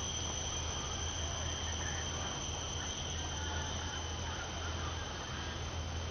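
Insects, such as crickets, calling in a steady, unbroken high-pitched drone, over a low steady hum.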